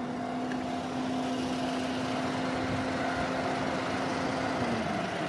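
An electric train on the JR Chuo Line approaching a level crossing: a steady hum over a rumble that grows gradually louder. Near the end the hum dips in pitch and fades.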